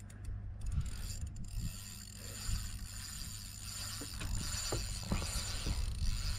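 Spinning reel being worked against a hooked bonefish, its mechanism clicking in short ticks, over a low rumble of wind on the microphone.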